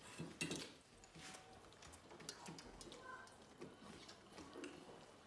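Faint eating sounds: fingers working rice on stainless steel plates, with scattered small clicks and scrapes of food and metal, a couple of them louder near the start.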